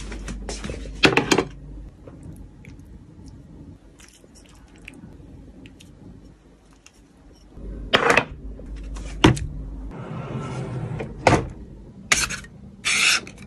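Short taps, clinks and rustles of glass dishes and chopsticks being handled on a table, with several louder knocks and rustles in the second half.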